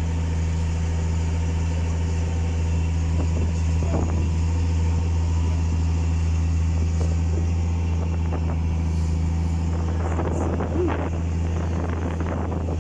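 Engine of an open-sided tour vehicle running steadily with a low, even drone as it carries passengers along the beach.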